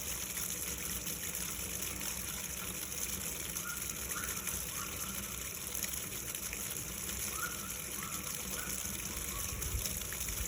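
Water gushing steadily from a sump pump's discharge.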